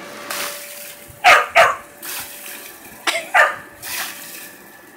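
Small dog barking in quick pairs, twice, over the steady hiss of water spraying from an inflatable water slide.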